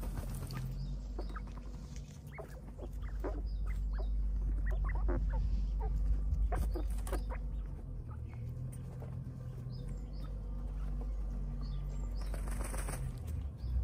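Japanese quails dust-bathing in loose soil: short fluttering and scuffing strokes as wings shuffle and feet scratch in the dirt, with a louder burst of wing flapping near the end.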